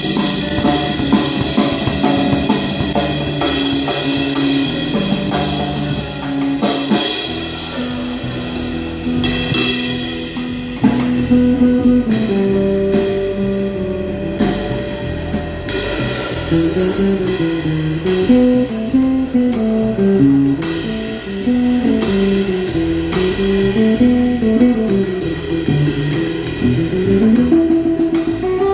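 Instrumental guitar trio playing live: a guitar picks a winding single-note melody over bass guitar and drum kit, the line growing busier about halfway through.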